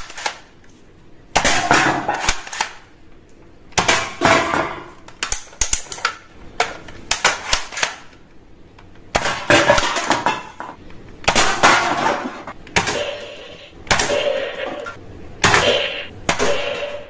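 Hard plastic toy guns clicking and clattering as they are handled, in short bursts of sharp knocks every second or two.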